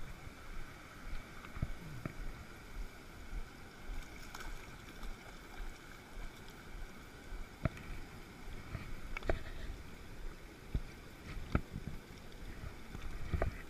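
Shallow mountain stream running steadily over stones, close by, with a few short, sharp clicks and knocks scattered through it.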